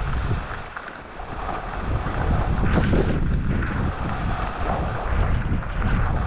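Wind buffeting a helmet-mounted camera's microphone during a ski descent, with the skis scraping and hissing on packed snow underneath. The rush dips briefly about a second in, then returns.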